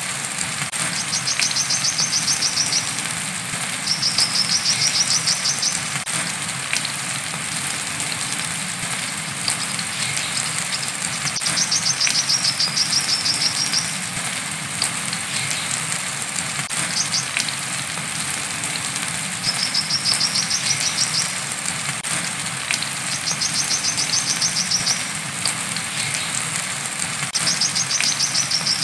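Brown-throated sunbird (kolibri kelapa) giving its 'wiceh' call: repeated bouts of a rapid high trill, each about two seconds long, over a steady hiss of rain.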